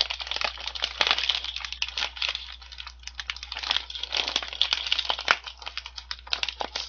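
Kettle-cooked potato chip bag crinkling and crackling in the hands, pulled and squeezed in a stubborn attempt to tear it open, a dense irregular rustle throughout.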